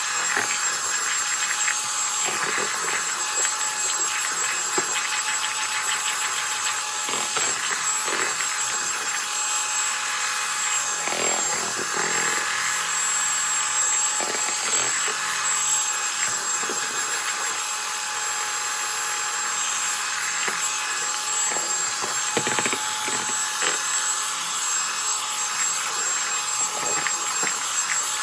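Electric hand mixer running steadily at one speed, its beaters churning thick soured milk in a plastic basin to bring out the butter, with a thin motor whine and a few short knocks now and then.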